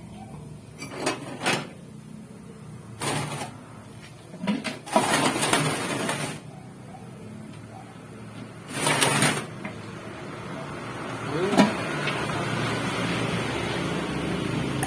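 Diesel water pump being turned over to check for noise after stones were cleared from it: several short scraping whirrs, then a steady mechanical running sound from about twelve seconds in. The rubbing points to a spot that still drags, and it turns stiffly.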